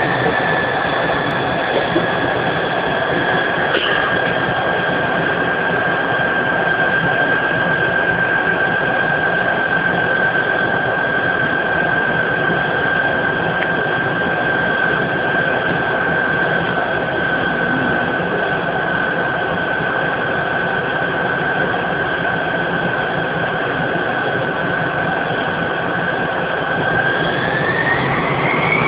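Tupolev Tu-134A's Soloviev D-30 turbofan engines heard from inside the cabin: a steady high whine over the engine noise while the aircraft taxis, climbing sharply in pitch near the end as the engines spool up.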